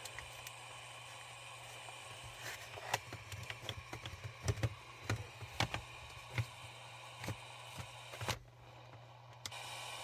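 Sony ICF-2001 receiver putting out a low hiss over a steady hum, with scattered short clicks and knocks. About eight seconds in the hiss drops away, then comes back louder a second later: the set's intermittent fault cutting the audio in and out.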